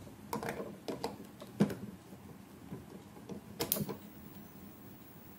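A handful of irregular clicks and knocks, spaced unevenly over the first four seconds, the loudest about one and a half seconds in.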